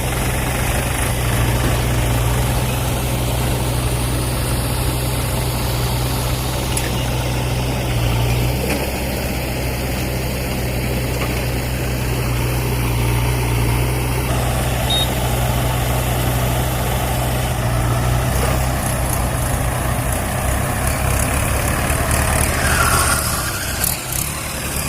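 Diesel engine of heavy earth-moving machinery running steadily at low revs.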